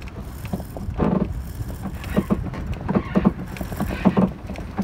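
Wind rumbling on the microphone aboard a wooden sailing cruiser under way, with water slapping and splashing against the hull at irregular moments, about one every half second to a second.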